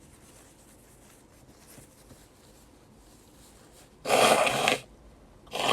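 A young woman sneezing in a fit she can't stop: two loud, breathy bursts, each under a second long, the first about four seconds in and the second starting near the end.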